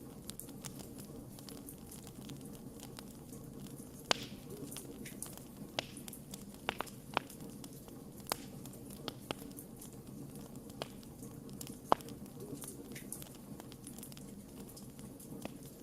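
Wood fire burning in a fireplace: a steady low sound of the flames under scattered sharp crackles and pops of burning logs. The loudest pops come about four seconds and about twelve seconds in.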